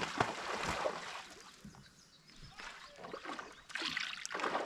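Water splashing and sloshing around a kayak, in two spells: one at the start and another near the end, quieter in between.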